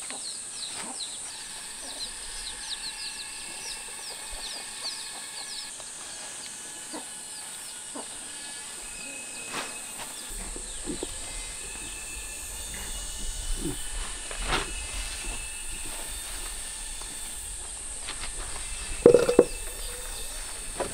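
Outdoor farm ambience: a steady high insect drone with quick bird chirps in the first few seconds, and scattered rustles and soft taps as bunches of leafy greens are handled and tied. Near the end, a short loud animal call of about half a second stands out above the rest.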